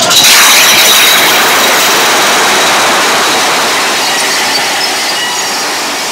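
Big Thunder Mountain Railroad's mine-train roller coaster running along its track: a steady rush and rumble of the wheels, with a faint high wheel squeal near the start. It grows slowly quieter as the train runs on.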